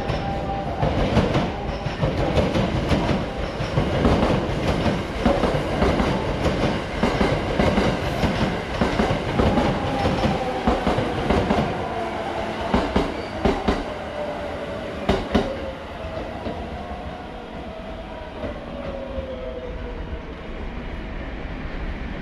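Limited express electric train running past on the station tracks, its wheels clacking over rail joints, with a whine that falls in pitch through the middle. The clacking dies away about two-thirds in, leaving a quieter rumble.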